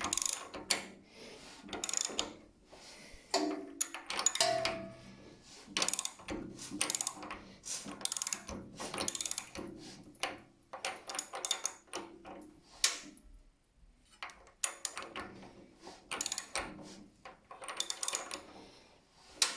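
Irregular mechanical clicking and ratcheting, coming in clusters about a second apart.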